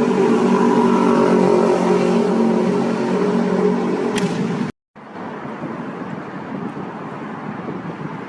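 Car engine droning steadily at a constant pitch. After a short break about five seconds in, a quieter, even rush of road and wind noise follows.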